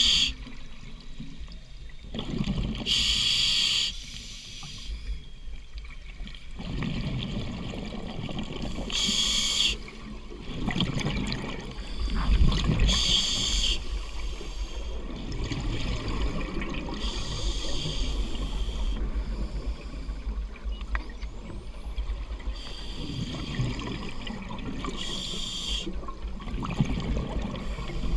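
Scuba diver breathing through a regulator underwater: a short hiss on each breath every few seconds, with the low bubbling rush of exhaled air in between.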